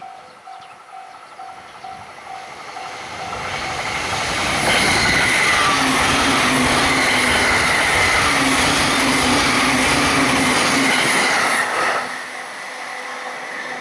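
Level crossing warning bell dinging rapidly as an electric train on the JR Joban Line approaches and passes at high speed. The rush of wheels on the rails swells from about three seconds in, runs loud with a steady whine and clickety-clack for about seven seconds, and cuts off suddenly near twelve seconds, leaving the bell ringing.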